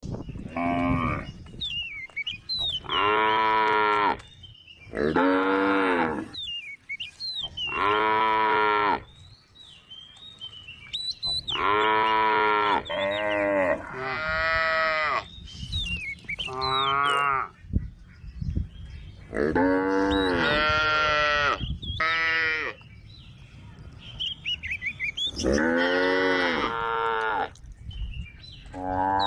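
A cow mooing over and over: about a dozen long, loud calls, each a second or two, at irregular intervals. Birds chirp faintly in the gaps between calls.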